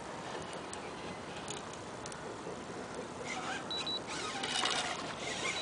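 Steady outdoor wind and water hiss. About three seconds in, a fast run of sharp mechanical clicks and rasps from the fishing reel starts, with a brief thin squeal, as the hooked fish pulls near the boat.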